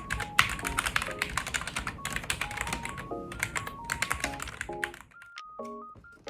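Rapid typing on a LeadsaiL FA98 low-profile mechanical keyboard with red switches, a quick run of key clicks that thins out to a few strokes about five seconds in, over background music with a simple melody.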